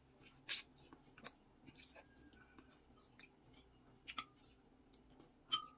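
Quiet eating sounds: a woman slurping and chewing noodles, with several short soft clicks of chopsticks and a plastic spoon against the bowl.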